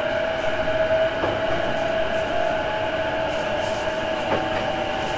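Inside an E233 series electric train's motor car in motion: the traction motors and their inverter whining with several steady tones over the running rumble of the wheels, with two faint knocks from the track.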